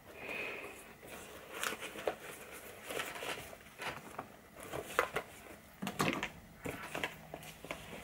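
Light rustling and scattered soft clicks of makeup items being handled and packed into a soft cosmetics bag, with the bag's fabric lining rustling.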